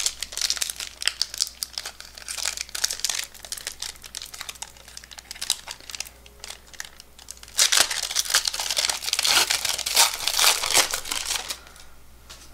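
Foil wrapper of a 1992 Upper Deck baseball card pack crinkling as it is handled, in two spells: one in the first three seconds or so, and a louder one from about eight to eleven and a half seconds in.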